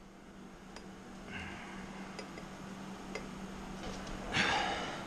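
Light clicks and clinks of stainless-steel exhaust parts as the collector is wiggled onto the exhaust tubes, with a louder scraping rustle a little after four seconds in. A steady low hum lies under it.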